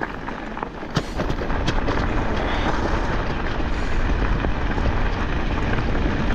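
Wind buffeting the microphone: a steady rumbling hiss that slowly grows louder, with a short click about a second in.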